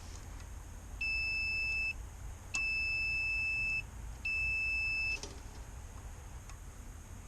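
Multimeter continuity beeper sounding three times, each a steady high beep of about one second, as the meter is put across motor windings: the beeps show the windings are not open.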